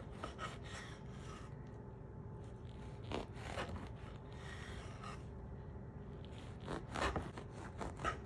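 A knife sawing through a crusty French bread loaf on a wooden cutting board, faint scraping back-and-forth strokes in several runs with short pauses between slices.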